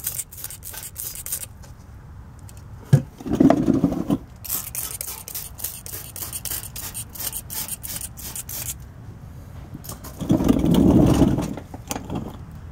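Hand trigger spray bottle squirting in quick repeated pumps. It stops for a few seconds after the first second or so and starts again. Twice, about three seconds in and about ten seconds in, a louder low rubbing noise is heard.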